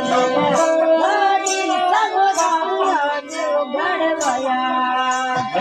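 Bhopa-Bhopi Rajasthani folk song: a woman's voice singing a wavering, ornamented melody over a steady instrumental drone.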